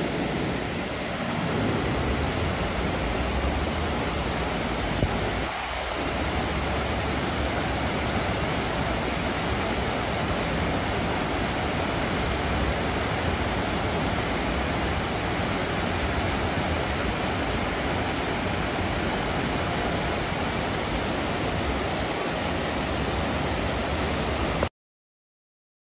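Muddy floodwater rushing as a torrent through town streets: a steady, even roar of water that stops abruptly near the end.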